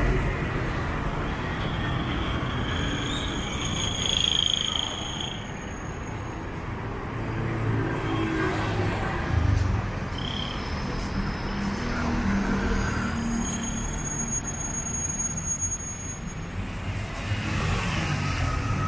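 City street traffic: a steady rumble of passing cars and other motor vehicles, with a few brief high-pitched tones over it.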